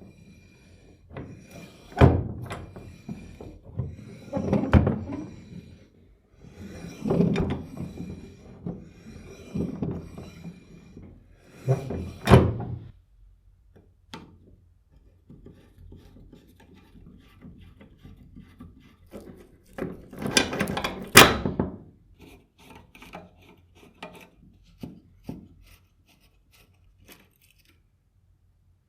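Workshop handling sounds: irregular thunks, knocks and rubbing in several bursts, the loudest about twenty seconds in, with lighter clicks between and a quiet stretch near the end.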